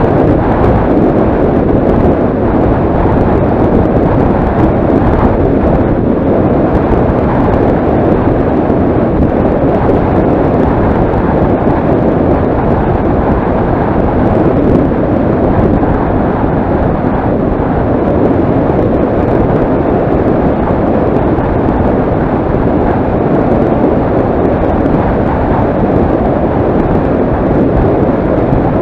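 Steady wind rushing and buffeting over the camera's microphone at speed on a fast downhill descent, with road rumble beneath and no engine note.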